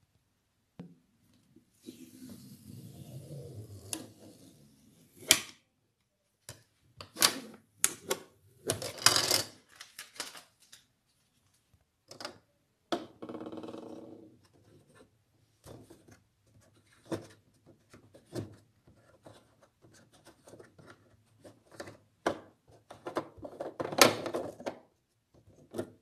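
Hands handling the plastic top of a De'Longhi tabletop dishwasher: scattered sharp clicks, knocks and rubbing of plastic parts. A louder run of clicks and scraping comes near the end as the threaded grey cap is worked off the round filling opening.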